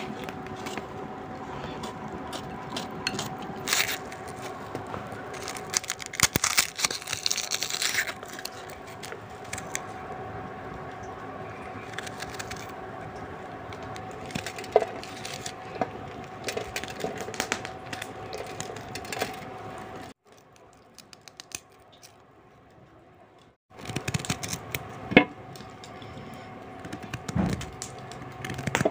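Small serrated kitchen knife cutting vegetables by hand (tomato, green chilli, peeling ginger): irregular small clicks and scrapes of the blade through the vegetables and against a steel plate, over a steady background hum. The sound drops almost to silence for about three seconds about two-thirds through.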